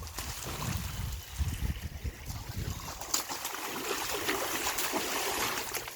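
Swimming-pool water sloshing and trickling, with small splashes and a low rumble in the first couple of seconds.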